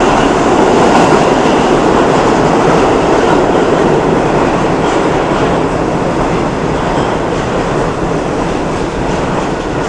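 R40 subway train entering the station at speed, a loud continuous noise of wheels on rail that eases gradually as it slows.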